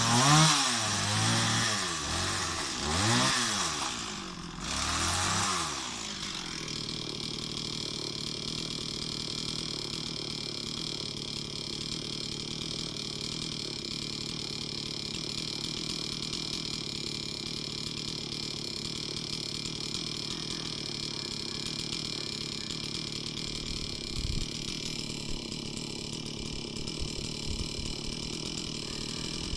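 Stihl MS 260 chainsaw's two-stroke engine revved up and down several times, then settling to a steady idle about six seconds in.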